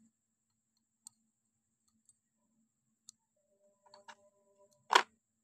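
Small steel parts of a diesel fuel injection pump being handled: faint light ticks about once a second, a few small clicks with a brief ring around four seconds in, then one sharp metal click near the end.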